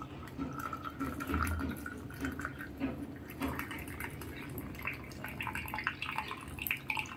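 Hot milky chai poured in a thin stream from a pan into a glass tumbler, a steady trickling splash that rises in pitch as the glass fills.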